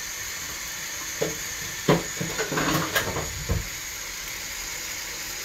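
Steady hiss of a pan of pisto cooking on a gas hob. Between about one and three and a half seconds in, a few knocks and clatters of cookware.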